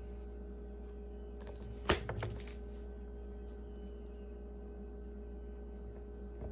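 Playing cards being set down and handled on a wooden tabletop: one sharp tap about two seconds in, then a few lighter clicks, over a steady low room hum.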